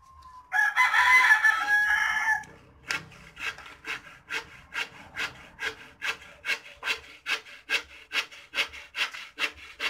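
A rooster crows once, loudly, starting about half a second in and lasting some two seconds. Then comes an even run of short rubbing strokes, about three a second: Teflon thread-seal tape being wound tightly around a threaded plastic pipe fitting.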